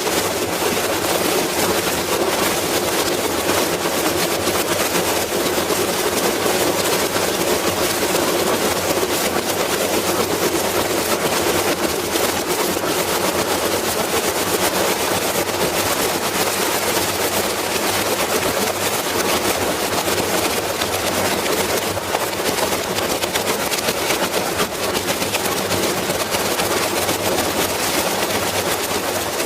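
Whirlpool washing machine running, a steady loud mechanical drone with a fast continuous rattle.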